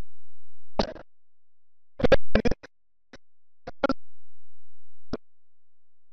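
Garbled digital broadcast audio during signal loss: short bursts of crackle and chopped sound, a cluster of them about two seconds in, with a faint low hum in some of the gaps.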